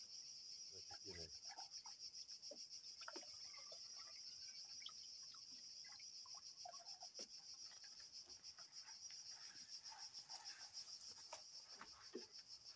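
Faint insect chorus: a steady, high-pitched, rapidly pulsing chirring, with scattered faint ticks and rustles.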